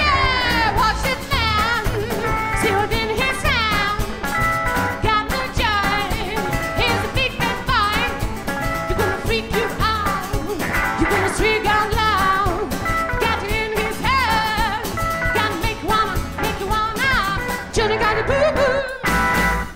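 Live band playing a rockabilly song: a woman sings lead over a plucked upright double bass and a steady beat.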